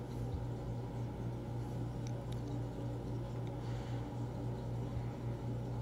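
Silicone basting brush spreading a wet garlic-and-spice marinade paste over raw chicken breasts: faint brushing with a few light taps, over a steady low hum.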